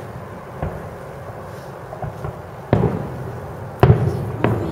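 Aerial fireworks shells bursting: a faint boom about half a second in, then three loud booms in quick succession in the second half, each trailing off in a low rumble.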